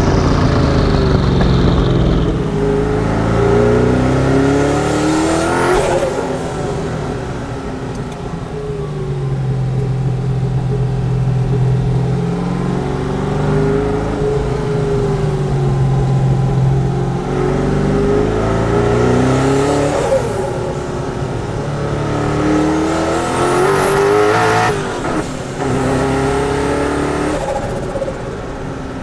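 Twin-turbo Chevrolet LS7 V8 of a Mazzanti Evantra Millecavalli accelerating hard several times, its revs climbing with a rising turbo whistle. Each of two pulls ends in a short sharp burst as the revs drop. Between pulls the engine runs at a steady speed.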